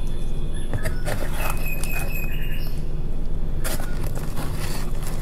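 Light knocks and rustling as a potted echeveria is handled and set down in a cardboard tray, over a steady low hum. A brief high chirp about two seconds in.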